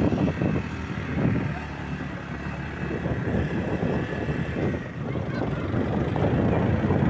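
Motorbike being ridden: the engine runs under rough wind buffeting on the microphone, growing louder near the end.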